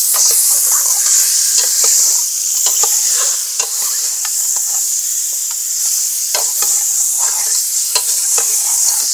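Chicken pieces sizzling in hot oil in a pressure cooker while being stirred with a metal ladle, which scrapes and knocks against the pot many times. The chicken is being lightly browned with onion and spices before water goes in.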